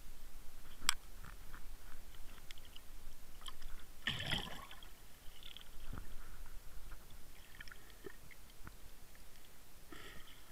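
Underwater river sound: scattered sharp clicks and soft crackles over a low rumble, with a short gurgling burst about four seconds in.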